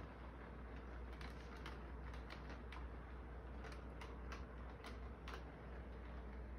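Model train cars rolling along the layout track, their wheels making irregular light clicks over the rail joints, over a steady low hum.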